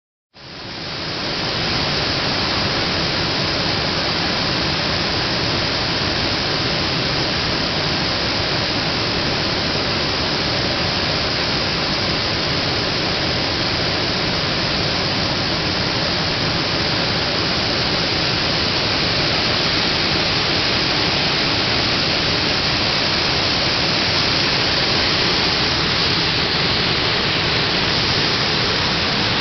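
Steady, even rushing noise with no change in it, fading in over the first second or so.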